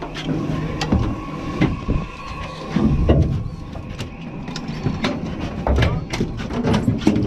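Boat engine running with a low rumble under a string of sharp knocks and clatter on the deck, coming thicker and faster near the end, with indistinct voices.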